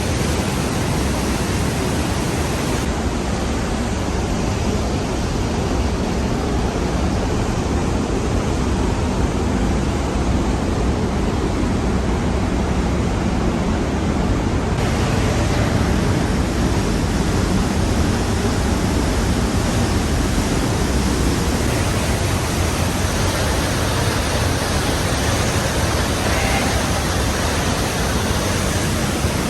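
Trümmelbach Falls' glacial meltwater rushing and crashing down the rock: a loud, steady waterfall roar. Its tone shifts slightly a couple of times.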